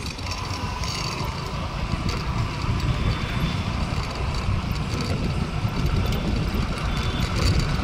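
Steady low rumble of riding on a scooter, wind and road noise buffeting a handheld phone's microphone, with faint steady tones above it.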